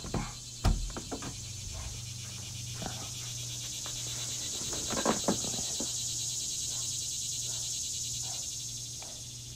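Cicada chorus sound track, a steady, finely pulsing high buzz. A door shuts with a thump just under a second in.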